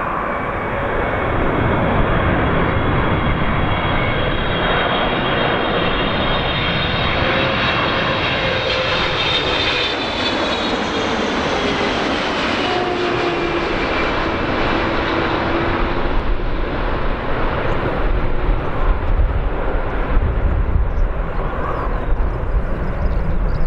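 Boeing 777-300ER's twin GE90-115B turbofans passing low overhead on landing approach: loud, steady jet engine noise with high fan whines that peak about halfway through, and a tone that falls in pitch as the plane goes by. Toward the end it turns into a lower, uneven rumble.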